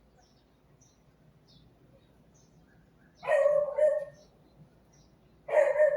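Dog barking: a couple of barks about three seconds in and another near the end, with faint high bird chirps in the background.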